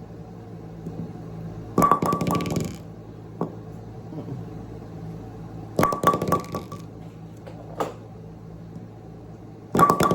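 Brunswick Score King bowling pin struck three times, about four seconds apart. Each strike is a quick clatter of hits with a ringing tone that dies away within about a second.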